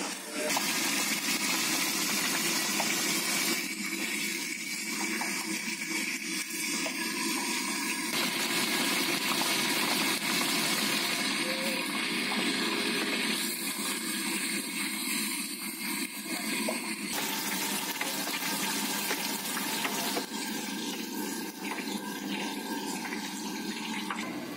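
Sumedang tofu deep-frying in a wide wok of hot oil: a steady, dense sizzle and bubbling of the oil. Its tone shifts a few times as the shots change.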